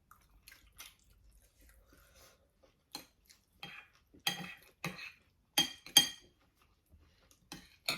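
Cutlery clinking against plates and bowls while eating: a string of sharp, ringing clinks, the loudest few coming close together in the middle, with faint softer eating sounds between them.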